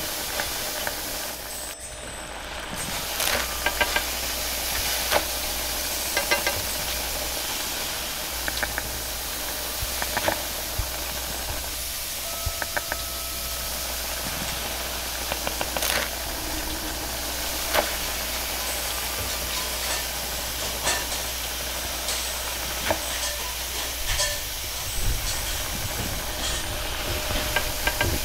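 Stir-frying in a wok over a high-flame gas burner: a steady hiss and sizzle, with the metal ladle clanking and scraping against the wok now and then.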